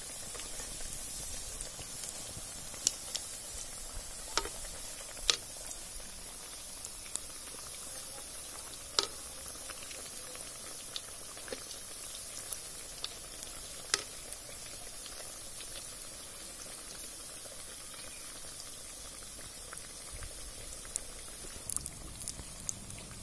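Medu vadai deep-frying in hot oil: a steady sizzle with a few scattered sharp clicks and pops.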